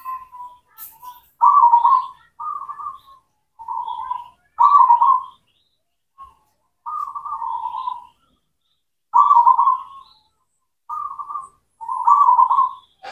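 Zebra dove (local perkutut) cooing: a string of short rolling coo phrases, each under a second, with brief pauses between them and one longer pause midway.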